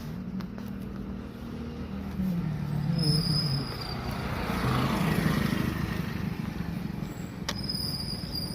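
Road traffic: a vehicle engine running with a rushing noise that grows louder through the middle and then eases off.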